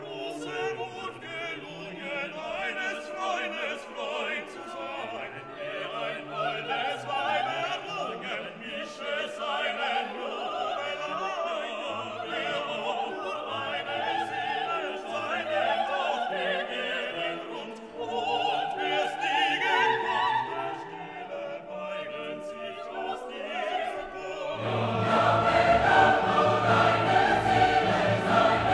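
Background classical choral music with singing voices and orchestra, swelling fuller and louder about 25 seconds in.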